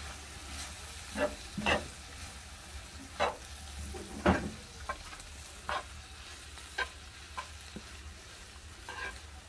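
A metal spoon stirring shishito peppers and dried anchovies in a nonstick frying pan, with a soft sizzle of stir-frying over low heat. There are irregular scrapes and taps of the spoon on the pan about once a second, over a low steady hum. The peppers have wilted, the sign that the stir-fry is done.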